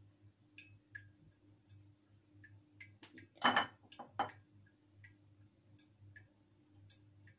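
Kitchen handling sounds while chili pieces are placed in a stainless steel pan: two short knocks, the louder about three and a half seconds in and a second just after four seconds, over faint scattered ticking clicks and a low hum.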